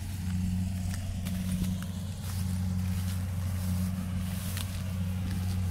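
Rice combine harvester's engine running steadily, heard as an even low hum, with a few light crackles over it.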